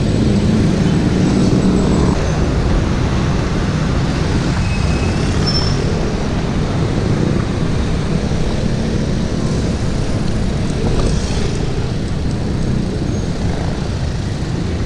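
Steady city traffic and road noise around a bicycle riding among cars and motorcycles, with a nearby vehicle engine's hum standing out in the first two seconds.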